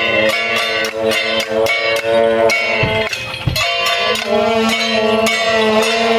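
Taiwanese temple procession music: a reed horn holds long notes with occasional slides over quick, even clanging strokes of gongs and cymbals, accompanying a Ba Jia Jiang troupe.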